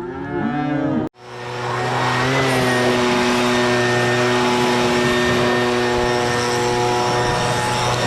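A cow bawls briefly, then the sound cuts off. After the cut a small engine-driven blower fades up and runs steadily at high speed, its engine tone over a rush of air, blowing hay and chaff out of a baler.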